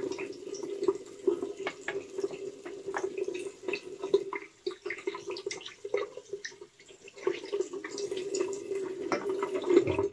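Bathroom tap running into a sink, with steady flow, splashing and drips, as a little water is added to a shaving soap to soften it.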